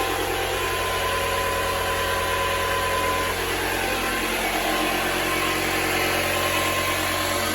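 Loud, steady construction-site machinery noise: an engine running without letting up, with a dense hiss laid over it.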